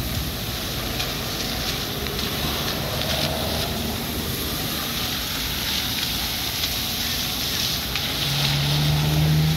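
Steady hiss of water jetting high into the air from a burst water main, mixed with cars passing over the wet road; a passing vehicle's engine hum comes up near the end.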